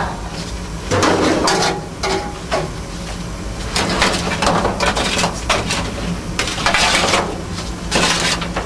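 Lumps of hot clinker from a steam locomotive's firebox scraping and clattering across the steel cab floor as they are cleared out, in separate scrapes and knocks about once a second over a steady low hum.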